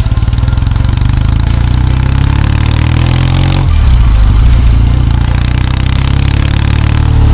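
Kawasaki W650's air-cooled parallel-twin engine pulling under acceleration: its pitch climbs for a few seconds, drops suddenly at a gear change a little past halfway, then climbs again.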